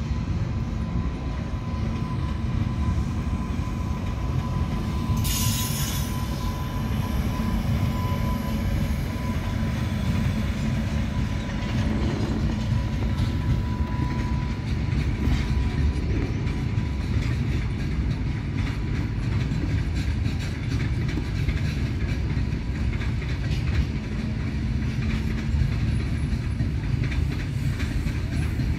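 Freight train of covered wagons hauled by a WAG-9 electric locomotive passing close by: a steady rumble and clatter of wagon wheels on the rails. A thin steady whine runs through the first half and stops about halfway, and a brief high hiss comes about five seconds in.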